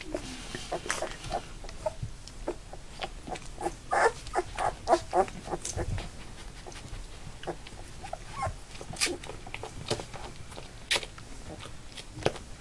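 Labrador puppies, just under three weeks old, whimpering and squeaking in many short high cries, thickest about four to five seconds in, with a few sharp clicks later on.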